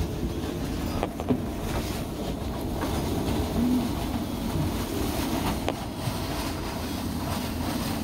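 Storm wind, gusting to around 40–50 knots, buffeting the microphone in a steady heavy rumble, with choppy wind-driven waves underneath. There are a couple of light knocks, about a second in and again near six seconds.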